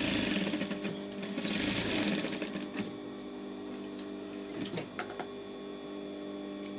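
Industrial flatbed sewing machine stitching in two short runs, one right at the start and one from about a second and a half in to nearly three seconds, going back over the end of the seam to lock the stitches and hold the taped braid end. It then stops, leaving a few light clicks as the fabric is drawn away from the needle.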